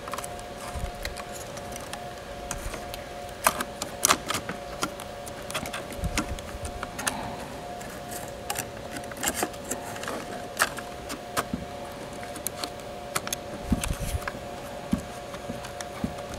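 Scattered small clicks and taps of fingers working a flexible ribbon cable and the plastic parts around it back into the laptop's system board connector, over a steady electrical hum.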